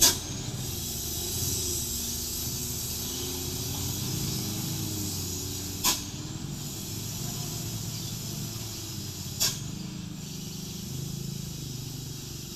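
Mitsubishi Fuso truck's diesel engine running low and steady while descending under a heavy load, its pitch wavering slightly. Three short, sharp hisses of air from the brakes come at the start, about six seconds in, and about three and a half seconds after that.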